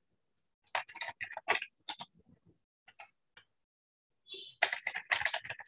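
Computer keyboard typing and clicking heard over a video call: a quick flurry of keystrokes about a second in, a couple of single clicks, then denser typing near the end.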